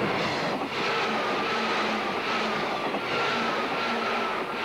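Passenger train passing close by at speed: a steady rush of wheel and rail noise, joined about a second in by a thin high whine that slides slightly down in pitch.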